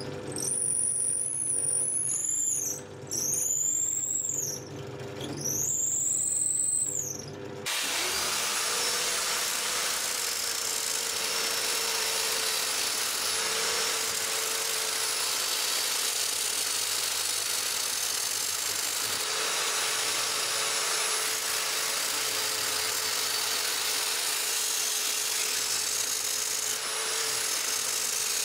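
Bench drill press drilling into the end grain of a wooden handle in three passes, its high tone rising and falling each time. About eight seconds in, it gives way to a steady run of an angle grinder with a sanding disc against a wooden handle spun by an electric drill held in a vise.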